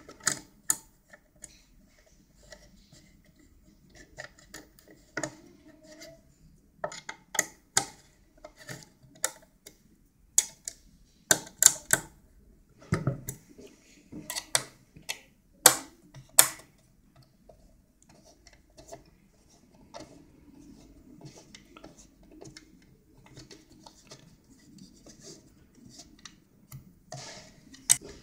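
Irregular clicks, taps and knocks of a circular saw and its wooden base plate being handled and adjusted with an Allen key, busiest in the middle, with softer handling rustle near the end.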